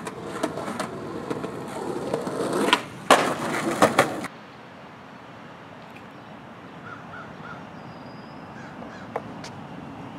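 Skateboard wheels rolling over concrete, with a few sharp clacks of the board, for about the first four seconds. Then it cuts abruptly to a quieter steady outdoor background with three short high chirps.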